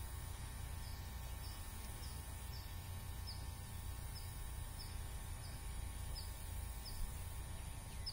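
Rural outdoor ambience: a small bird repeats a short, high, falling chirp every half second or so over a steady low rumble.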